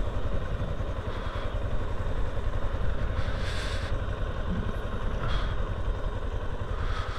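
Yamaha Serow 250's single-cylinder engine running at low speed as the motorcycle rolls along, a steady low rumble.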